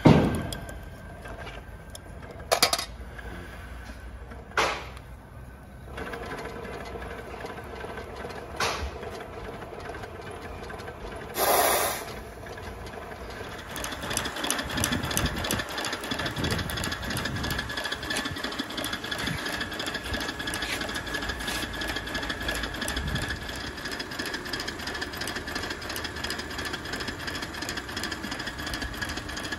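A 5-inch gauge live steam locomotive running on a roller stand, its wheels and valve gear spinning with a fast, steady mechanical beat that sets in about halfway through. Before that there are a few separate knocks and a brief hiss.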